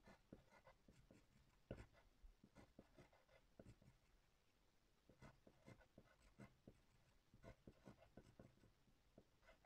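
Pencil writing capital letters on lined notebook paper: faint scratchy strokes and little taps in quick groups, with a short pause a little before halfway.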